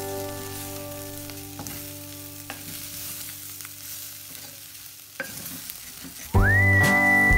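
Chicken gizzards sizzling as they fry in a stainless steel pot, stirred with a wooden spoon that knocks against the pot a few times. Background music fades out over the first seconds and comes back loudly near the end, opening with a rising whistle.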